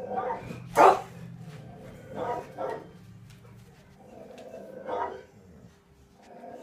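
A recorded guard dog barking and growling through a TV's speakers: about five separate barks, the loudest and sharpest about a second in, the rest spread over the following seconds.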